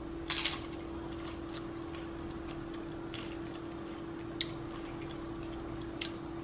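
Tortilla chips crunching as they are bitten and chewed: a loud crunch about half a second in and two shorter sharp ones near four and a half and six seconds, over a steady low hum.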